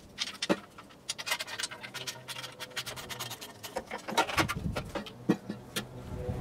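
Clicks, taps and scrapes of hand tools on a spare lawnmower engine as its recoil starter cover is taken off: irregular, with a denser run of quick clicks from about one to three seconds in.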